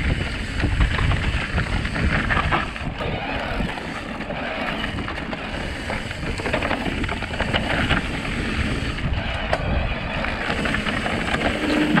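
Electric mountain bike riding fast down a dirt trail: tyres rolling over the ground with the bike rattling and clicking over bumps, and wind buffeting the microphone.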